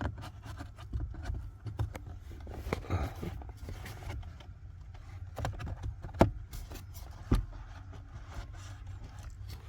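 A cabin air filter being pushed and worked into its plastic housing: scattered scraping and rustling with small clicks, two sharp knocks a little past six seconds and about a second later, over a steady low rumble.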